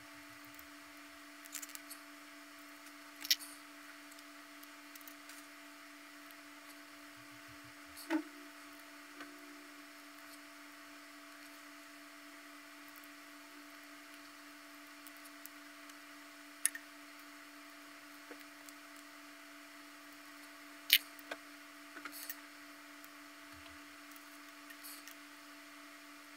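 Small plastic puzzle parts clicking and tapping now and then as they are handled and fitted together while the puzzle's core is assembled, over a steady low hum.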